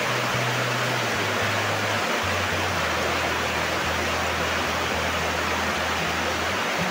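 Heavy rain falling steadily on a corrugated metal roof, a constant even hiss. Under it, soft background music with low held notes that change every second or so.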